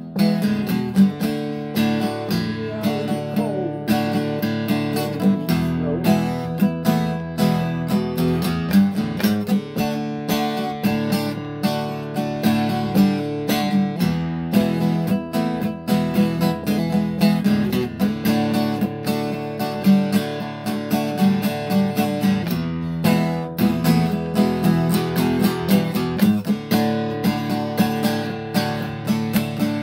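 Acoustic guitar strummed in a steady rhythm, chords ringing between the strokes, with no singing.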